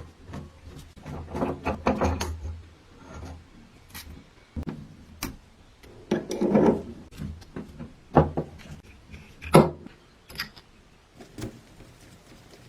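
Irregular knocks, clicks and short scrapes of hard objects being handled and worked, with a few heavier thuds.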